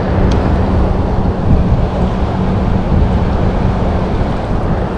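Wind buffeting the microphone over the river, with the boat's motor humming steadily underneath.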